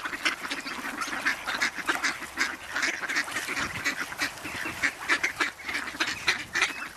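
Waterbirds calling: a dense, unbroken run of short calls, several a second and overlapping one another.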